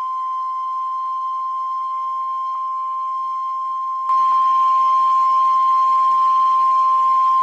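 NOAA Weather Radio warning alarm tone: a single steady beep at about 1050 Hz, held without a break, the attention signal that comes before a severe thunderstorm warning. About four seconds in it gets louder, with a hiss added underneath.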